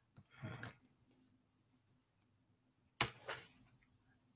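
A few faint keystrokes on a computer keyboard as a spreadsheet formula is typed: a small click and a soft rustle within the first second, then two sharper clicks about three seconds in.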